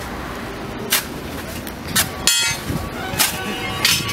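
Metal snow shovel striking and scraping packed snow and ice, sharp knocks about once a second, with a brief ringing metallic scrape near the middle.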